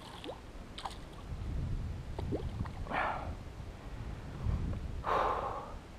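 Hooked juvenile tarpon splashing at the surface beside a landing net, with two short splashes about three seconds in and again near the end, the second louder, and a few faint knocks early on.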